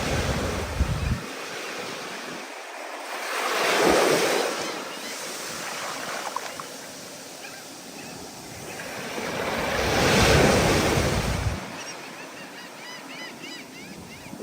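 Ocean surf in stormy weather: waves breaking in two big swells, about 4 and 10 seconds in, under steady wash, with wind gusting on the microphone.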